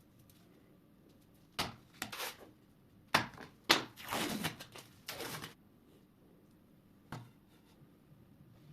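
Work on ceramic tile pieces: several sharp knocks, and a few short scraping or ripping noises between them.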